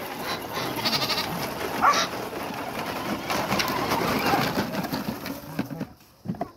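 Wheels of a child's battery-powered ride-on motorcycle rolling and crunching over gravel, easing off near the end as it stops. A short rising animal call comes about two seconds in.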